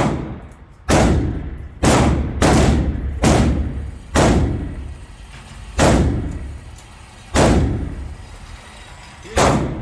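Daniel Defense MK18 5.56 AR pistol firing about nine single shots at an uneven pace, each a sharp crack with a decaying echo.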